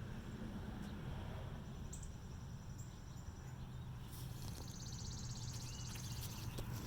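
An insect trilling, a rapid, even, high-pitched pulsing that starts about halfway through, over a steady low hum.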